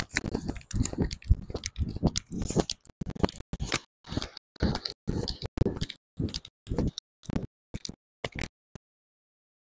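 Barefoot running footfalls on beach sand during a sprint, a quick crunchy step about three times a second, growing fainter and cutting off suddenly near the end.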